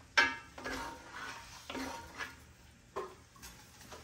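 A utensil knocking and scraping against a cooking pan while meat is stir-fried. There is a sharp ringing clank just after the start, then several softer knocks.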